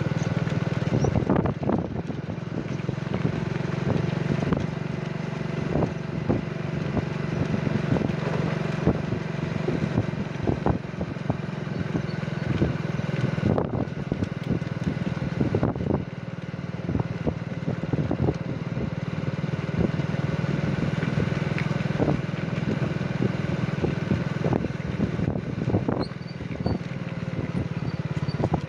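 Motorcycle engine running steadily at low speed, with wind rushing over the microphone and scattered clicks and knocks.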